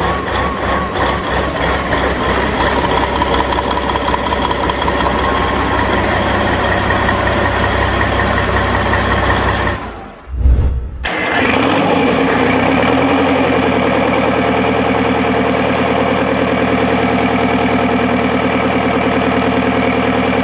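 Caterpillar 3412 V12 diesel engine running steadily. About ten seconds in the sound breaks off with a low thump, then a large diesel engine starts up and settles into a steady idle.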